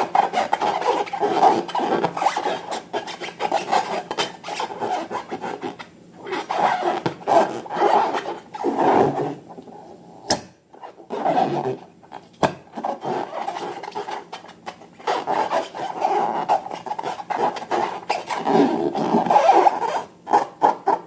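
Slime being stirred and squished, a dense, crackling, rasping texture that comes in surges, with short pauses and a couple of sharp clicks about ten and twelve seconds in.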